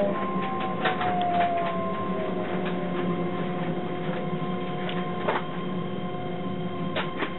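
Running sound inside the cab of a Keihan 13000 series electric train: a steady hum and whine from the traction equipment, with a tone that falls slowly in pitch over the first couple of seconds. Scattered sharp clicks come from the wheels over rail joints and points, as the train slows along the station platform.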